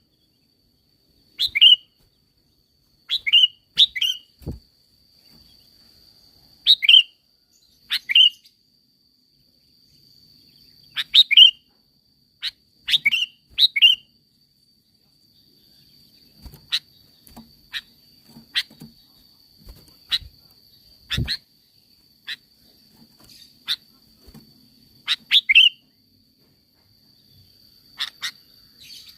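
Sooty-headed bulbul calling: short sharp chirps, singly or in quick pairs, every second or two with a few short pauses. A thin steady high tone runs behind them.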